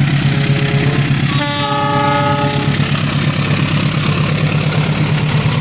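Diesel locomotive running under load as it hauls a long freight train of tank wagons, its engine beat loud and steady. Its multi-tone horn sounds once, about a second and a half in, for over a second.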